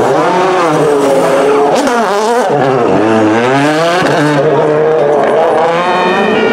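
Ford Fiesta WRC rally car's engine revving hard through a tight turn, its pitch swooping up and down with the throttle and gear changes. A short burst of tyre noise comes about two seconds in.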